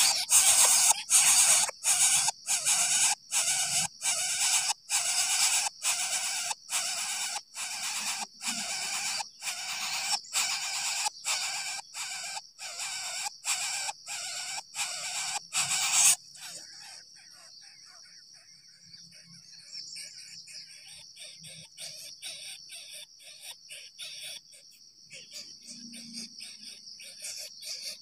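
Coucal nestlings begging with loud, raspy hissing calls repeated about twice a second, which stop abruptly about two-thirds of the way in. After that only a faint steady high-pitched insect-like drone remains.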